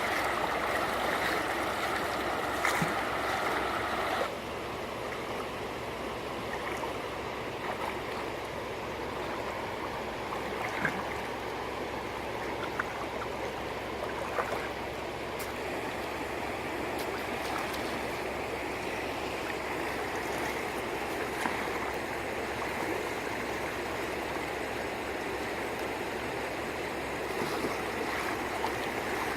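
Shallow water sloshing and trickling steadily, with a few light clicks; a little quieter from about four seconds in.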